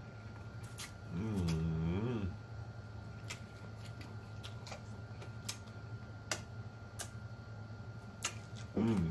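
A person eating fried chicken close to the microphone: wet mouth clicks and lip smacks scattered throughout, with a hummed "mmm" of enjoyment lasting about a second starting about a second in, and another short hum near the end.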